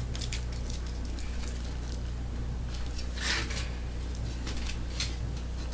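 Tin foil crinkling as it is handled and folded, in scattered small crackles with one louder rustle about three seconds in, over a steady low hum.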